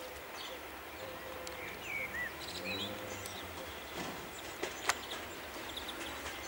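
Small birds chirping and singing over a faint low rumble from the two Class 37 diesel locomotives still some way off, with a single sharp click about two-thirds of the way through.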